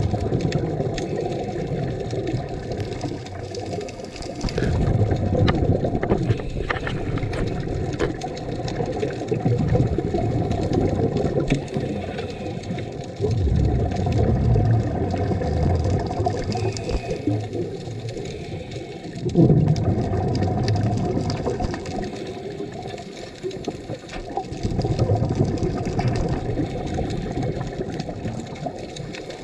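Underwater rumble of a scuba diver's exhaled bubbles from the regulator, swelling in surges every few seconds over a steady water hiss, heard through the camera's underwater housing.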